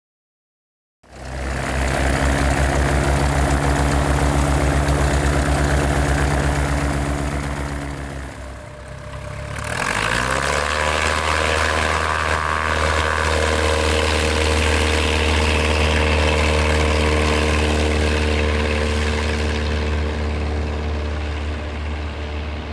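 Van's RV-6A light airplane's four-cylinder Lycoming engine and propeller running steadily. About eight seconds in the sound dips, then the note rises and settles into a new steady drone, easing off slightly near the end.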